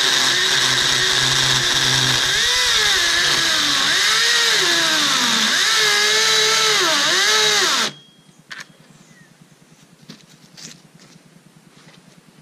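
Makita DUC353 cordless brushless 36 V chainsaw cutting a thick log, its electric motor whine repeatedly dipping and recovering in pitch as the chain bogs under load. It stops abruptly about eight seconds in, leaving only a few faint knocks.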